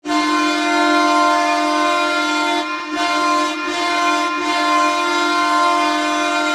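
Ottawa Senators' hockey goal horn blowing one long steady air-horn blast, dipping briefly just under three seconds in.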